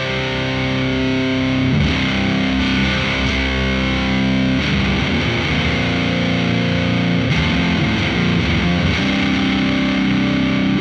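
Electric guitar played through a FuzzHugger FX Lab Ratchet fuzz pedal into a Laney VC30 amp: thick, distorted fuzz chords left to ring, with a new chord about every two to three seconds.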